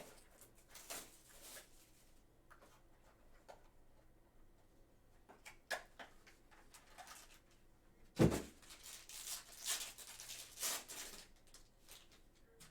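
Trading card packs being handled and opened: light rustling and clicks of the wrapper and cards, a single thump about eight seconds in, then a few seconds of rustling and tearing.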